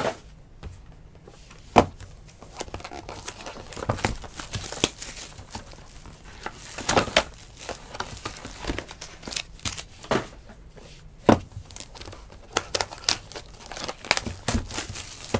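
Foil and plastic baseball card pack wrappers crinkling and tearing as they are handled and ripped open, in irregular sharp crackles.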